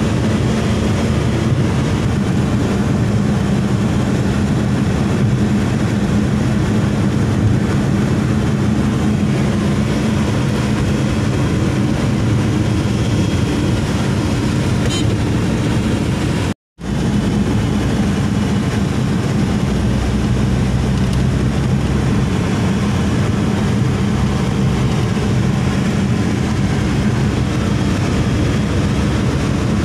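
Steady engine drone and road noise inside a moving car's cabin on a highway. The sound drops out to silence for a split second a little past halfway.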